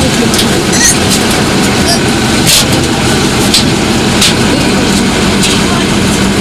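Heavy engine running steadily, heard from inside a military vehicle's compartment as a loud, even drone with a low hum, with a few brief clicks and knocks of handling.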